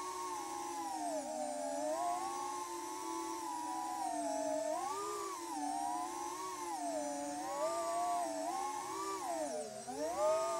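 FPV quadcopter's brushless motors and propellers whining, heard from on board. The pitch rises and falls with the throttle, with a deep drop and recovery near the end.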